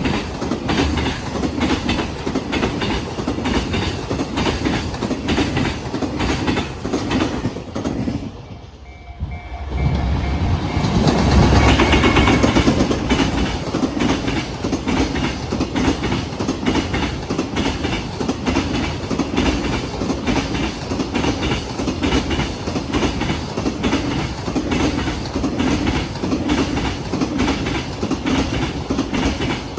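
Freight train wagons rolling past, the wheels clattering over the rail joints in a steady, repeating rhythm. About eight seconds in it briefly drops quieter, then swells to its loudest for a few seconds before settling back to the same clatter.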